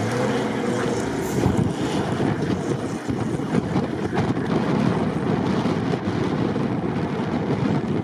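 A 4x4 SUV's engine working hard under throttle as it ploughs through deep snow, rising in pitch early on, under heavy wind noise on the microphone.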